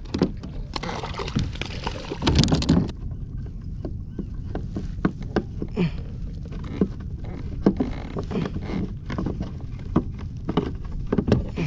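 Handling a freshly landed halibut on a plastic kayak: scattered knocks and clicks of fish and tackle against the hull, with a louder rustling scuffle about a second in, over a steady low rumble of wind on the microphone.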